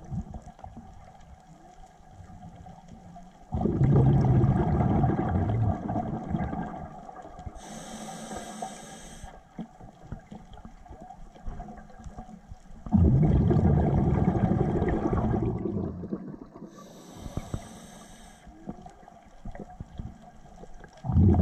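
Scuba diver breathing through a regulator underwater: twice a loud rumbling rush of exhaled bubbles, each followed a couple of seconds later by the short high hiss of an inhale through the regulator, and another exhale starting at the very end.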